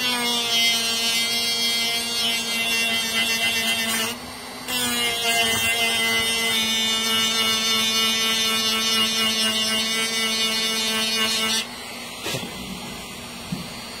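Handheld rotary tool with a small grinding disc running at speed, a steady high whine, as it grinds down the thin steel shaft of a battery toothbrush. It stops briefly about four seconds in, starts again with a short dip in pitch as it bites, and cuts off near the end.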